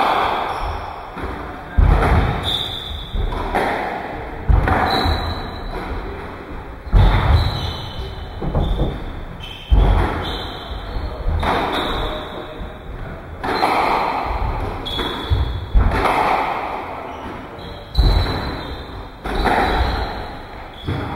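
Squash rally: the ball being struck by rackets and smacking into the court walls, sharp echoing thuds coming roughly every two seconds.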